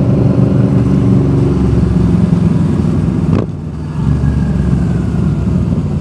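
Yamaha V-Star 1300's V-twin engine running steadily at cruising speed under wind noise, heard from the rider's helmet. About three and a half seconds in, the sound cuts abruptly to a quieter, different engine note with wind: the Yamaha FZ-07's parallel twin.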